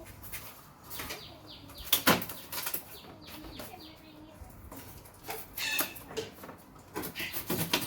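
Irregular knocks and clatter, loudest about two seconds in and again near the end, with small birds chirping in the background.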